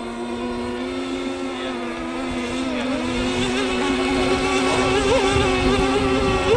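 Model engine of a radio-controlled scale racing hydroplane running flat out, a steady high-pitched drone. The pitch dips briefly about three seconds in, then wavers as the sound grows louder while the boat comes closer.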